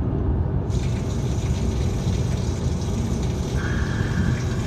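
Road noise inside a moving car's cabin: a steady low rumble from the tyres and engine, with a higher hiss joining about a second in.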